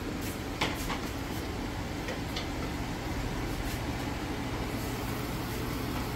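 A steady low appliance hum, with a few light clicks of kitchen utensils about half a second in and again about two seconds in.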